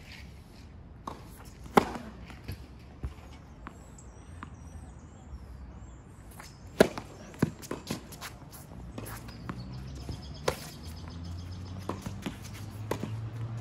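Tennis ball being struck by rackets and bouncing on a hard court during a rally: sharp pops a few seconds apart, the loudest about two seconds in and again near seven seconds, with lighter footsteps and shoe scuffs between them.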